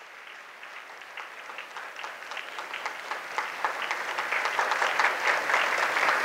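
Audience applauding with dense, irregular hand claps that build steadily louder.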